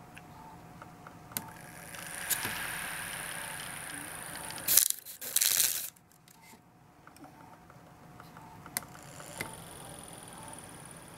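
A small DC hobby motor spinning a CD with a paper pinwheel on it, switched by a breadboard pushbutton, running with a faint high whine. About five seconds in, a loud papery scraping rustle as the disc is handled. Near the end, button clicks and the motor running again, the CD spinning unglued on the motor crown.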